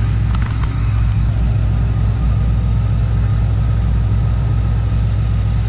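Supercharged V8 with a freshly fitted 2.9 L Whipple supercharger and an SRT Max Plus cam, idling steadily while still cold. A few light clicks come about half a second in.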